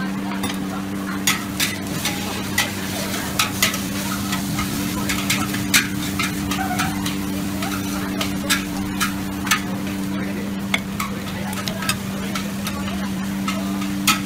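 Noodles stir-frying in a large wok: a metal spatula and ladle scrape and clank against the pan at an irregular pace, about one or two sharp knocks a second, over sizzling and a steady low hum.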